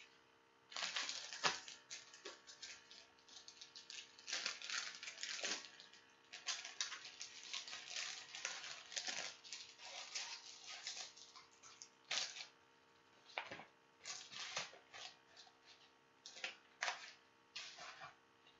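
Packaging being handled and unwrapped: irregular bursts of crinkling and rustling, with a few sharper crackles, continuing with short pauses.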